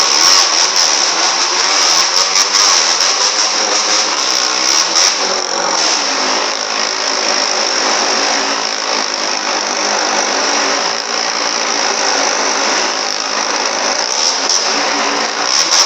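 Motorcycle engines running hard and continuously as riders circle the inside of a wall-of-death drum, the engine pitch wavering up and down.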